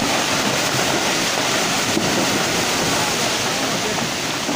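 Loud, steady rush of muddy floodwater pouring down a hillside in a torrent, with no break in the noise. It eases slightly near the end.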